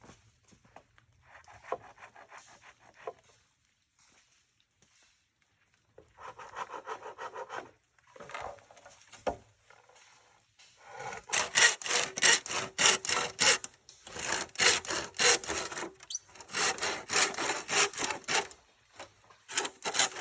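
Bamboo being cut with a hand saw: rapid back-and-forth rasping strokes in short bouts, which become louder and keep going from about halfway through, with brief pauses.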